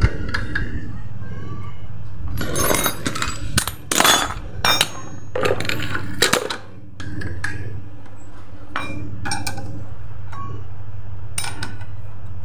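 Steel hand tools clinking and clanking against the rear CVT clutch housing of a Honda automatic scooter as a pulley holder tool and socket wrench are fitted to its nut, with a burst of clanks between about two and seven seconds in. A steady low hum runs underneath.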